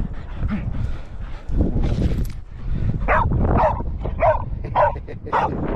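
Small dog barking in about five short yaps, roughly half a second apart, in the second half, over a low rumble.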